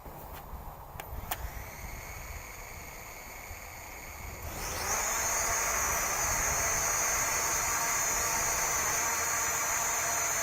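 Visuo XS812 toy quadcopter's motors starting with a few clicks, then about four and a half seconds in spinning up in a rising whine to a steady high-pitched whine at full throttle. The drone is weighed down by a camera strapped to it, which is too heavy for it to lift off.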